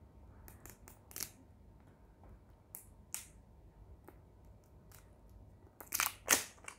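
Small plastic milk bottle being opened by hand: scattered clicks and scratches from fingers picking at the plastic cap and seal, with a pair of sharper, louder cracks near the end.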